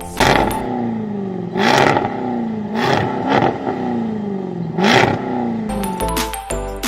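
Car engine and exhaust revved in about four sharp blips, the pitch falling away slowly after each one.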